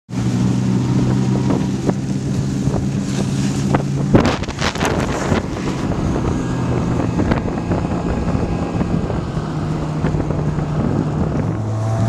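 Snowmobile engine running at a steady speed, with wind noise on the microphone that is heaviest about four to five seconds in. The engine note drops near the end as the machine slows.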